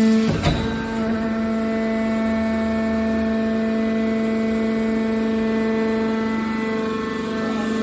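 Hydraulic power unit of a scrap-metal baling press running: a steady, loud hum from the electric motor and hydraulic pump, with a single knock about half a second in.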